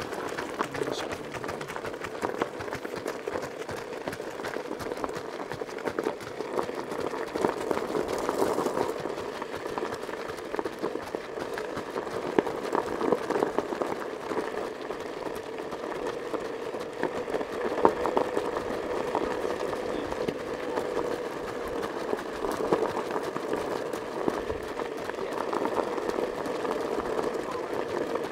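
Steady crunching and rattling of movement over a rocky gravel road, with a steady hum underneath and many scattered sharp clicks from the stones.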